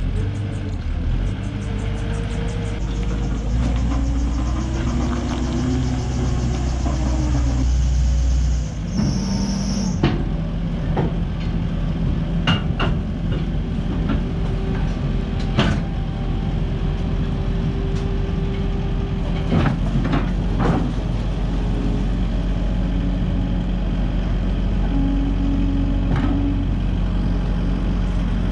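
Takeuchi TL230 skid steer's diesel engine running steadily, its pitch rising and falling for a few seconds, with a high whine until about a third of the way in. Several sharp metallic clanks follow, spaced a few seconds apart.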